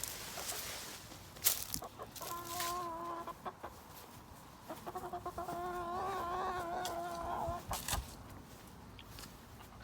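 Backyard hen giving two drawn-out, wavering calls, the first about a second long and the second nearly three seconds, with a few sharp clicks around them.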